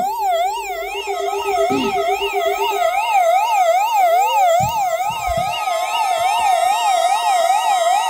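Several NOAA weather alert radios sounding their alarms at once, set off by the required weekly test signal: a warbling siren-like tone rising and falling about three times a second, layered with steady alert tones. Another alarm tone swells up and joins about halfway through.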